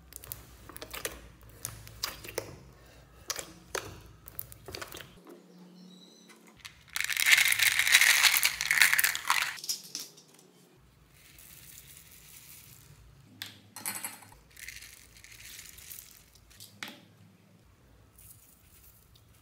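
Hands squishing slime, with sharp wet clicks and pops. About seven seconds in, beads are poured onto the slime in a loud rattling rush lasting about three seconds, followed by quieter rustling pours of sprinkles and glitter.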